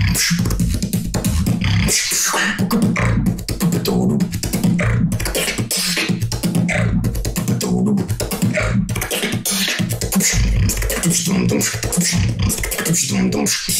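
Solo beatboxing: a dense, unbroken run of sharp mouth-percussion hits over a continuous low bass tone.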